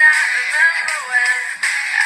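An electronic ringtone melody playing from an LG 237C phone's small built-in speaker, sounding thin with no bass.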